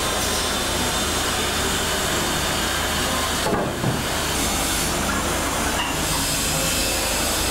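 Steady hissing rush of workshop background noise over a low steady hum, with a brief break in the noise about halfway through.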